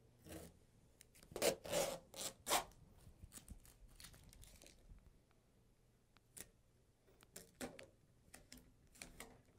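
A plastic protective cover rustling in a few quick, loud swishes as it is pulled off a printer, then softer scraping of blue masking tape being peeled off the printer's panels near the end.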